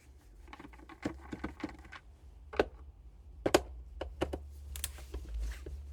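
Light clicks and knocks of the induction cooktop's opened housing and parts being handled, with two louder knocks near the middle, over a steady low hum.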